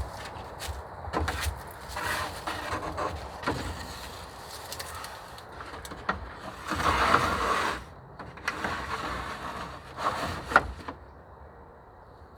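Shelter-building work noises: irregular rustling and scraping with scattered knocks. The longest scrape lasts about a second in the middle, and a sharp knock comes a few seconds later.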